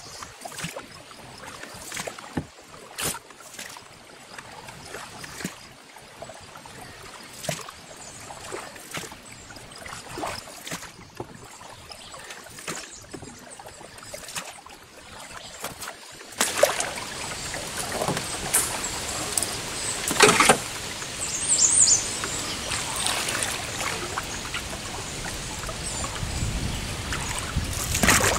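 Canoe paddle strokes in river water: irregular dips, drips and small splashes, with the occasional knock. About sixteen seconds in, a louder steady rushing noise comes in and stays, with a few stronger splashes over it.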